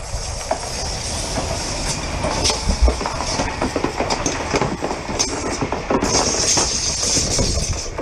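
Electric commuter train passing close by, its wheels clattering over the rails in a dense run of irregular clicks over a steady rush of noise. Wind is buffeting the microphone.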